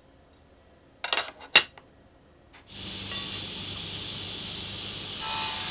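A few sharp metallic clinks about a second in as the crosscut sled's aluminum fence and stop are handled. Then a table saw starts and runs with a steady high whine from about three seconds in, growing louder near the end.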